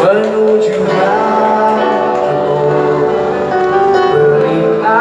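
Live pop band music with a singer, amplified through the concert PA system.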